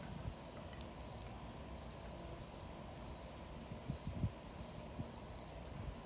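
Crickets chirping steadily in a high, pulsed rhythm, about two chirps a second, over a campfire. Two sharp pops from the burning wood come about a second in, and a few soft low thuds follow around four seconds in.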